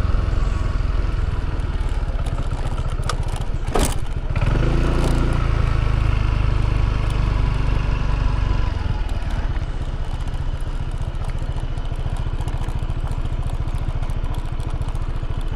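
Wind buffeting the microphone over a running motorbike, with a sharp click about four seconds in; the rumble eases off about nine seconds in.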